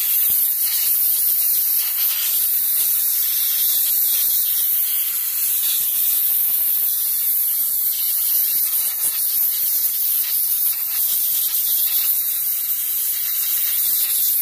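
Compressed-air blow gun hissing steadily as it blasts WD-40 off a golf cart's rear drum-brake assembly.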